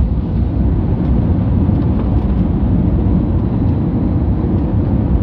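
Airbus A320 cabin noise during the landing roll-out just after touchdown, spoilers raised: a loud, steady low rumble of the engines and the wheels on the runway, heard inside the cabin.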